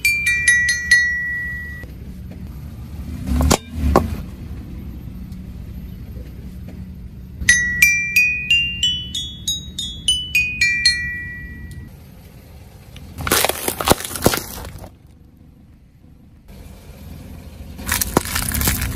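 Toy xylophone with coloured metal bars struck with a mallet, playing quick runs of notes: a falling run at the start, then one that rises and falls back down. Two sharp knocks come a few seconds in, and later there are two bursts of crunching and crackling, the last a car tyre rolling over wrapped Snickers bars.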